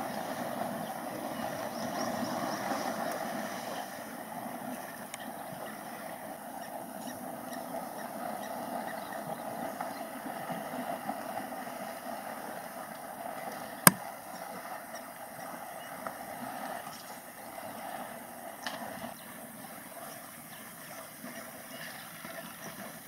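African elephants splashing and wading in shallow dam water, over a steady background rumble. One sharp click sounds about fourteen seconds in.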